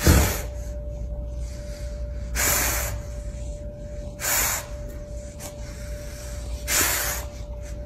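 A dog sniffing hard at the edge of a closed door: four long, hissy sniffs about two seconds apart, the first the loudest.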